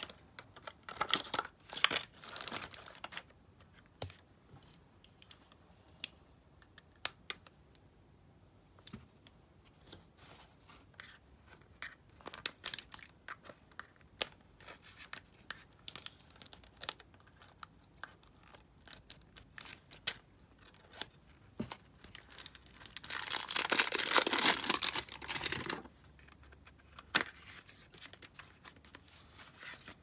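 Plastic cosmetics packaging being handled and opened: clear plastic bags and wrappers crinkling and tearing, with scattered sharp clicks and taps of small plastic makeup items being picked up and set down. The longest and loudest stretch of tearing and crinkling comes about three-quarters of the way through.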